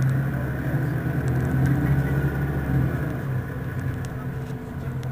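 Mercedes-Benz Citaro city bus's rear-mounted engine idling steadily with a low hum while the bus stands at a stop, easing off slightly in the last couple of seconds.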